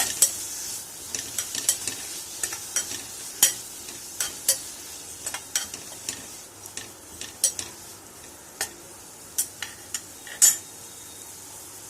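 Mint and coriander leaves sautéing in ghee in a pan, with a spatula stirring and scraping, giving irregular clicks and taps against the pan over a sizzle that fades after the first second or so.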